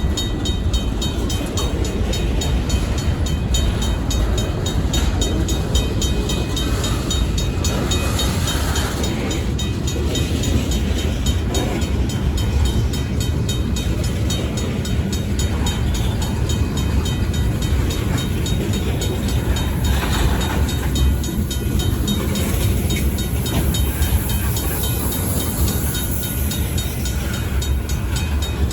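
Union Pacific local freight train rolling slowly through a grade crossing: a steady low diesel rumble with wheel and car noise, over the crossing's RACO mechanical bell ringing in rapid, even strokes.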